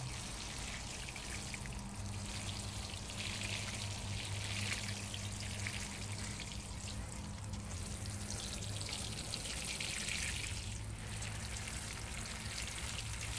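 Water sprinkling from a watering can's rose onto potting soil in planters, a steady patter that swells and fades a few times as the spray moves across the pots.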